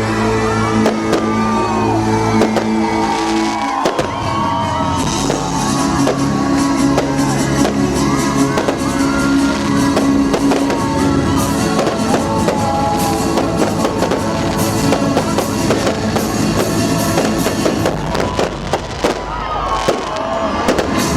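Fireworks shells bursting in a rapid string of bangs and crackles, many a second, over loud festive music played through loudspeakers.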